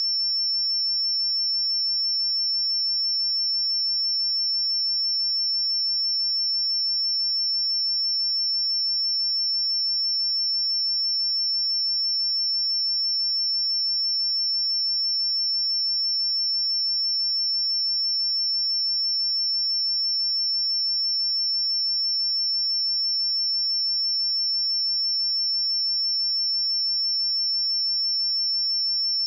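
A steady, unbroken 5397 Hz sine-wave test tone: a single high-pitched pure tone at constant loudness, used to check speakers and headphones.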